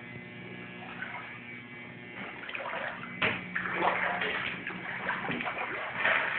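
Footsteps sloshing and splashing through shallow floodwater on a house floor, in irregular bursts from about two seconds in, over a steady low electrical hum.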